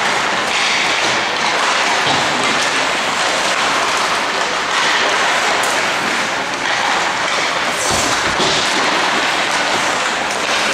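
Steady, loud hiss of ice-rink noise during a hockey warm-up: skates on the ice, pucks and arena din blending together, with a low thump about eight seconds in.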